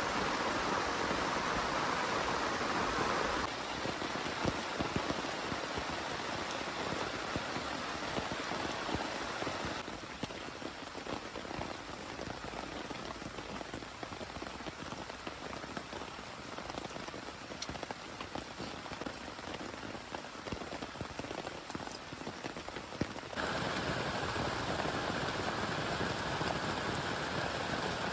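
Heavy rain falling and pattering on a surface, a dense hiss full of individual drops. Its loudness and tone shift abruptly a few times, about three seconds in, at ten seconds and near twenty-three seconds.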